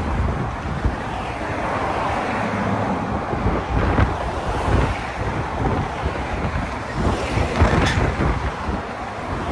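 Wind buffeting the microphone outdoors: a steady, dense rush of wind noise with a few brief sharp knocks.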